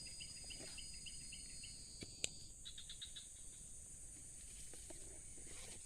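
Insects chirping and droning steadily, with a short chirp repeating about three times a second through the first second and a half. One sharp click comes about two seconds in.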